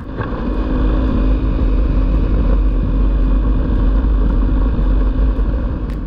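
Honda CRF250L's single-cylinder engine running at a steady cruising speed while riding, under a heavy, constant wind rumble on the microphone.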